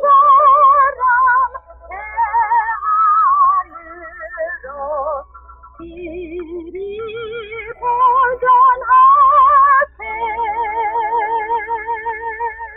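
Closing music: a slow melody of long held notes with a wide vibrato, moving between several pitches, the last note held and fading near the end.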